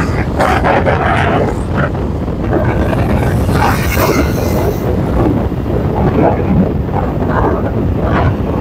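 Motorcycle riding along a road: steady wind rushing over the microphone, with the engine and road noise underneath.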